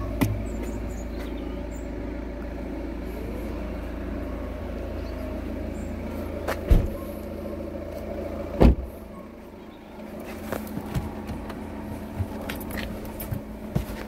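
Volvo XC90's doors being shut: two solid thumps about two seconds apart over a steady low hum, then light clicks and knocks.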